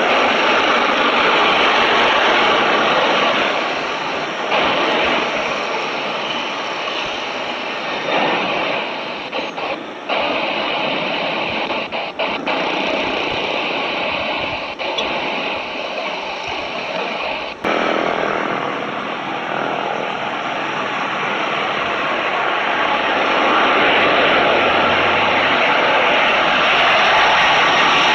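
Jet airliner engines running at high power: a steady, broad rushing noise that swells and fades, with a few brief dropouts in the middle, growing louder toward the end.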